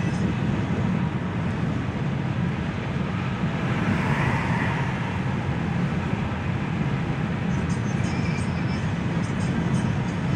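Car interior noise while driving on a rain-wet highway: a steady low rumble of engine and road with tyre hiss on the wet surface, swelling briefly about four seconds in.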